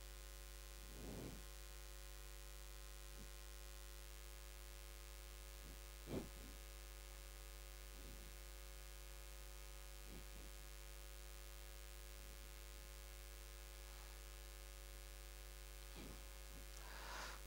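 Near silence over a steady electrical hum, with a few faint short squeaks and taps of a marker writing on a whiteboard, the clearest about six seconds in.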